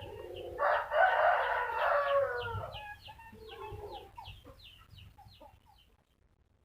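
A rooster crows once, a long call of about two and a half seconds starting about half a second in, over a fast run of short high chirps, about four a second, that fade away. The sound cuts out to silence near the end.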